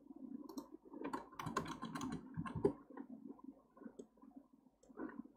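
Clicking of a computer mouse and keyboard: a quick run of sharp clicks about one to three seconds in, then scattered single clicks.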